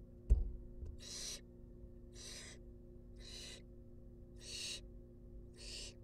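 Barn owl nestlings' hissing begging calls, short hisses about once a second, five in all, as they beg to be fed. A sharp thump about a third of a second in is the loudest sound.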